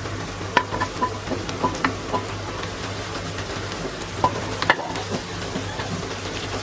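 Shallots and onion frying in hot oil in a small pan, with a steady sizzle and scattered clicks of a spoon or spatula stirring against the pan. A steady low hum sits underneath.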